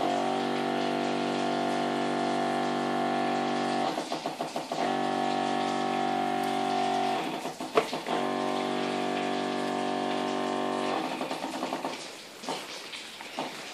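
Electric pump of a water-injection gun running with a steady hum, switched on three times for a few seconds each, with short breaks between, as it forces water into raw broiler chicken carcasses. Brief clicks and handling noise fill the breaks, and quieter handling follows near the end.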